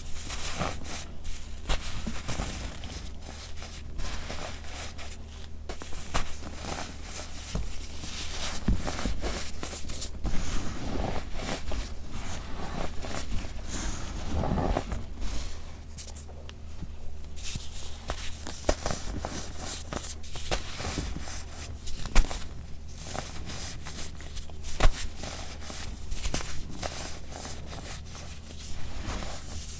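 Gritty compacted baking soda being crushed and crumbled, a steady run of irregular fine crunches and squeaks, with two sharper cracks about three quarters of the way through.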